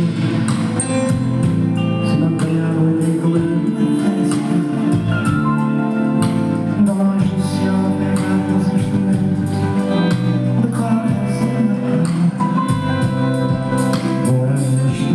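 Live band playing an upbeat popular song, with singing over a steady beat.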